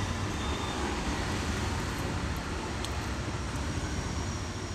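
Steady low rumble of road traffic, with a few faint light clicks.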